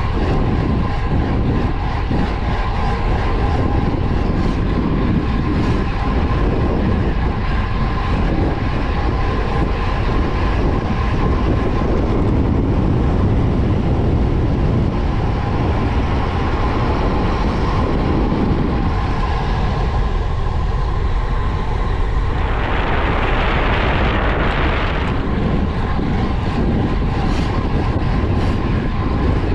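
Wind rushing over the camera microphone and tyres rolling on asphalt during a fast road-bike descent, a steady loud rumble, with a louder hiss for a couple of seconds near the end.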